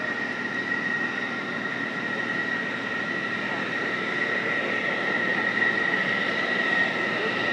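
Jet engines idling and taxiing: a steady high-pitched whine over a rushing roar, slowly getting a little louder.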